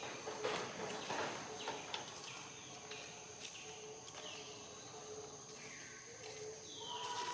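Outdoor tropical ambience: a steady high-pitched insect drone, with a bird repeating a short whistled call that falls in pitch about once a second. A few faint clicks come in the first two seconds.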